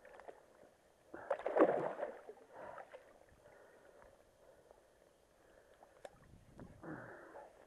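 River water sloshing and splashing in the shallows as a landing net is worked through it, loudest in a burst about a second and a half in, with more sloshing near the end.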